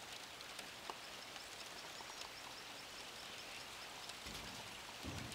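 Light rain falling on the lagoon's water surface, a faint, steady hiss. A short run of faint high chirps comes in the middle.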